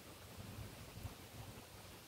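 Faint wind buffeting the microphone: a soft, uneven low rumble over a steady hiss.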